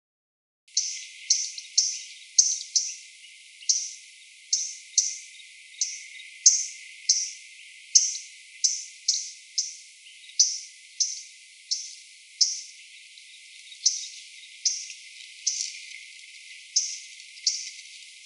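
MacGillivray's warbler giving a long series of short, sharp, high call notes, unevenly spaced at roughly one or two a second.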